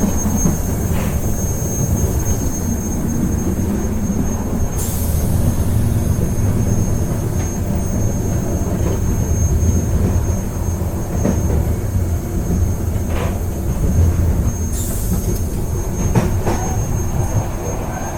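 Ride noise of a moving train: a steady low rumble of wheels on the track with a faint steady high whine, scattered knocks, and two short bursts of hiss about five and fifteen seconds in.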